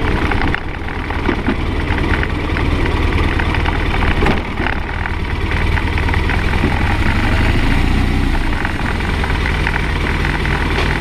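2009 BMW R1200RT's flat-twin boxer engine running at low speed, close to idle, steady throughout, with a short knock about four seconds in.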